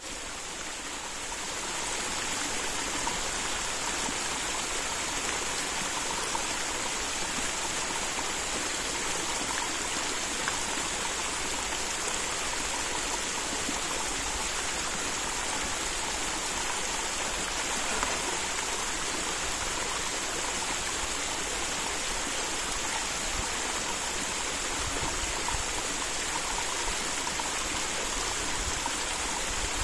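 Small mountain brook flowing: a steady rush of running water.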